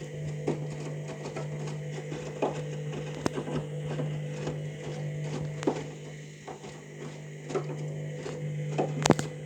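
Candy Grand'O Vita washing machine on its main wash, the drum turning with laundry inside: a steady hum with irregular soft knocks and clicks as the load tumbles, and one sharp louder click near the end.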